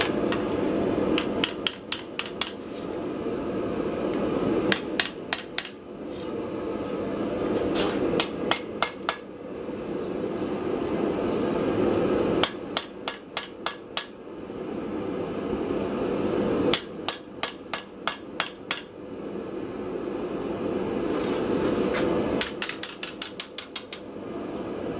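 Hand hammer striking a hot cable-Damascus steel blade on an anvil, forging it out in six quick bursts of several blows each. A steady rushing noise runs beneath and between the bursts.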